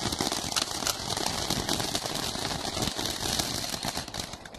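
A lit firework spraying sparks with a steady hiss and a dense, fast crackle, thinning out near the end as it burns down.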